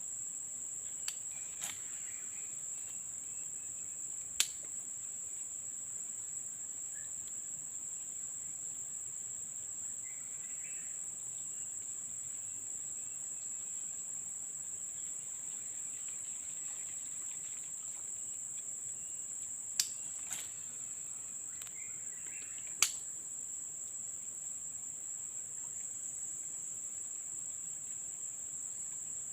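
Steady high-pitched insect chorus droning without a break. A handful of sharp clicks stand out, the loudest about four seconds in and near twenty-three seconds in.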